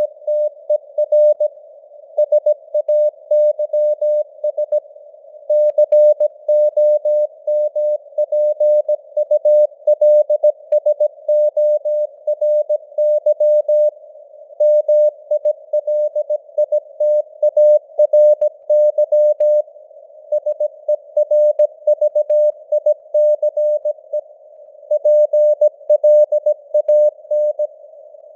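Morse code at 17 words per minute: a single mid-pitched beep keyed into dots and dashes, with short gaps between letters and longer ones between words, over a faint band of simulated radio hiss.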